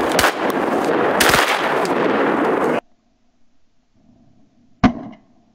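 Duck hunters' shotguns firing several shots over a loud rush of noise, which cuts off abruptly a little under 3 seconds in. Near the end a single shotgun blast sounds over the water, with a brief echo.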